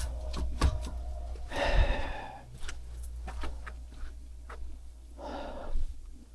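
Two short, heavy breathy exhales, about a second and a half in and again about five seconds in, among scattered sharp knocks and clicks.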